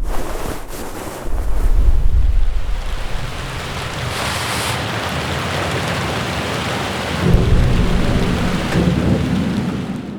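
Steady rain with deep rolling thunder, one rumble near the start and another building from about seven seconds in. It fades out at the end.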